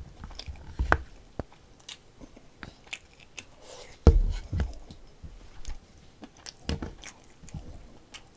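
A person chewing and eating close to the microphone, with scattered small mouth and utensil clicks and a few low thumps about one, four and seven seconds in.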